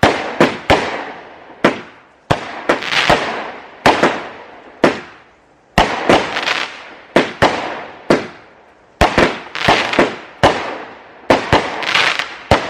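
Consumer fireworks going off in rapid succession: a long run of sharp bangs, about two a second, each trailing off in a fading hiss.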